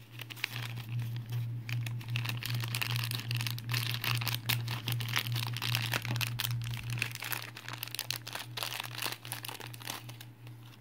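Thin plastic toy packaging bag crinkling and crumpling in the hands, a dense run of crackles throughout, over a steady low hum.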